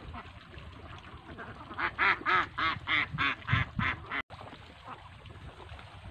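Itik (Philippine native ducks) quacking: a rapid run of about eight loud quacks, roughly three a second, starting about two seconds in and stopping abruptly about two seconds later.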